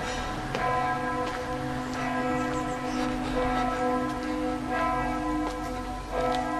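Full peal of church bells: several large bells ringing together, their strikes falling in an irregular, overlapping pattern over a sustained ringing hum.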